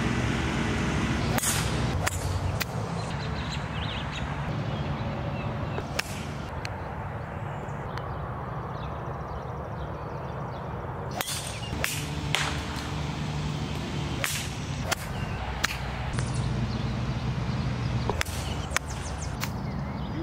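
A series of sharp clicks of golf clubs striking the ball on putts and chips, over a steady low engine hum.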